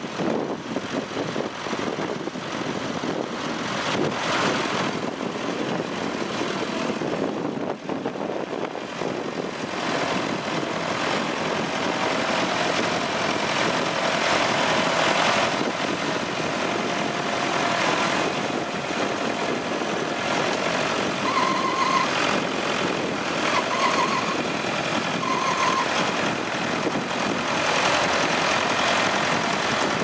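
Leyland 154 tractor engine running steadily under load while pulling a mounted plough through wet soil.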